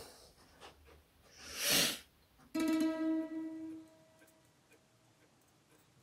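A short puff of noise, then a single ringing twang like a plucked string that fades out over about a second and a half.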